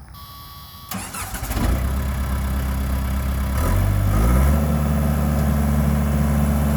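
Case 1840 skid steer's diesel engine cranking over about a second in, catching and running, then rising in pitch as it is throttled up to a steady higher speed near the middle.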